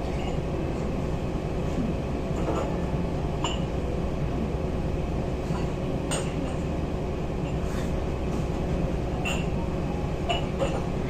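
Steady low rumble of a cruise ship under way, heard from on board, with a few light clinks scattered through it.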